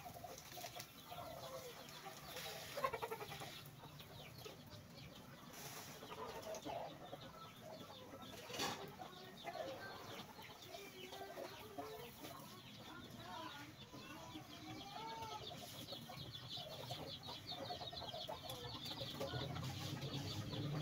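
Chickens clucking quietly, short scattered calls, with a fast high ticking joining about halfway through.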